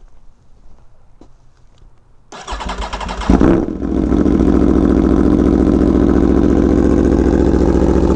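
2017 Aprilia Tuono V4 1100 Factory's 65-degree V4 engine being started: the electric starter cranks for about a second, the engine catches with a sharp blip of revs, then settles into a steady idle.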